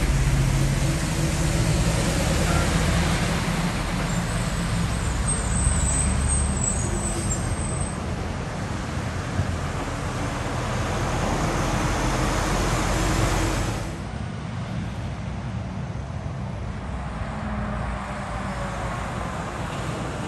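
Heavy diesel truck engines running as trucks drive past at low speed, a deep steady engine note with road noise. The loudest stretch drops off suddenly about two-thirds of the way through, leaving a quieter engine rumble.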